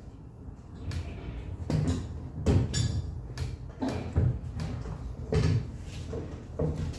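Timber framework pieces being handled and shifted, giving about half a dozen irregular wooden knocks and clunks.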